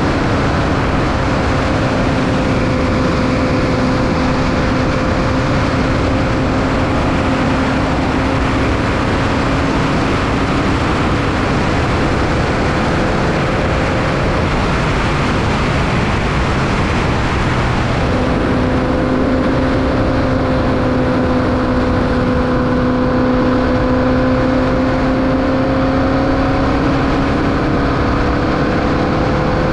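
Onboard sound of a Formula Vee race car's 1200cc Volkswagen air-cooled flat-four running at high revs, a steady engine note over heavy wind and road rumble. The note drifts slowly in pitch, drops away for several seconds midway, then comes back.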